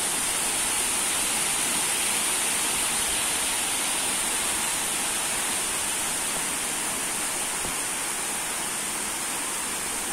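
Heavy rain pouring steadily onto bamboo and dense leafy trees: an even, unbroken hiss.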